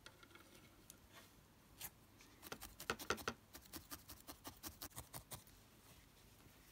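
Felting needle stabbing repeatedly into wool over a foam pad, heard as a run of faint, quick clicks, several a second, from about two seconds in until shortly past five seconds.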